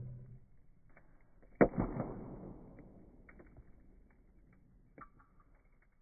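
Slowed-down sound of a wood fire in a fire basket crackling. One loud pop comes about a second and a half in with a long fading tail, and a few fainter snaps follow.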